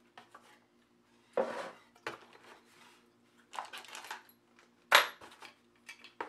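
Accessories being taken out of a cardboard box by hand: a handful of separate rustles and knocks of cardboard and plastic, the sharpest knock about five seconds in.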